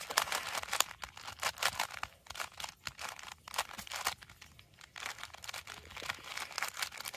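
3x3 Rubik's Cube being turned quickly during a speedsolve: a rapid, irregular clatter of plastic layer clicks.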